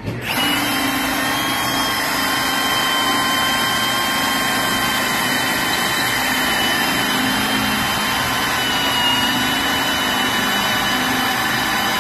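Milwaukee M18 Fuel cordless hammer drill running a Hole Dozer bi-metal hole saw through a wooden board. The motor whines steadily over a continuous cutting noise, its pitch sagging slightly under load about three-quarters of the way through, and it stops at the end.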